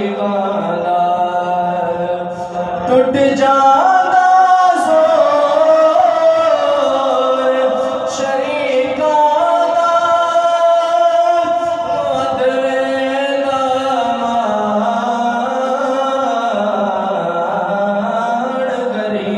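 Unaccompanied male singing of a Punjabi naat in long, held and sliding notes, growing louder about three seconds in.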